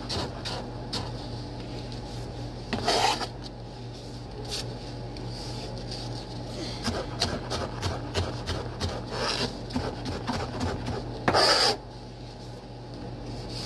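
Chef's knife chopping a red onion on a cutting board: a quick, uneven run of blade taps on the board, with two louder scrapes, about three seconds in and near the end.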